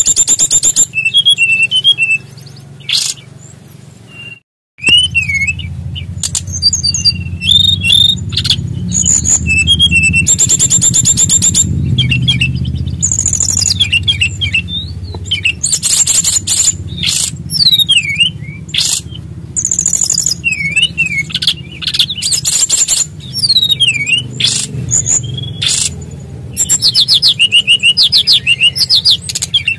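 Brown-chested jungle flycatcher singing a long, varied song of whistled up-and-down glides and fast high trills, phrase after phrase, with a brief break about four and a half seconds in.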